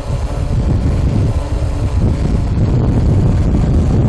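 Strong, gusty wind buffeting the microphone: a loud, low rumbling roar that dips briefly at the very start, then holds steady.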